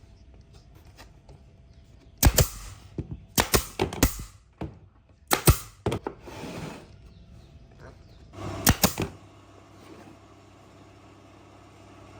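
Irregular sharp knocks and clatters, about a dozen of them, from about two seconds in to about nine seconds in, some ringing briefly. A low steady hum starts shortly before the knocking stops.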